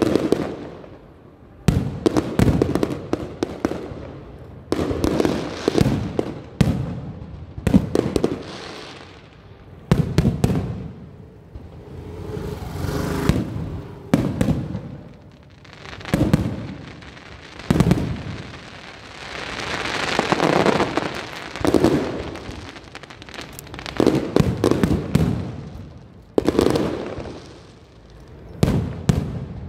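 Aerial fireworks shells bursting one after another, a sharp bang every one to two seconds, each dying away in a rumbling echo. Twice a long spell of crackling, the second and longest about twenty seconds in.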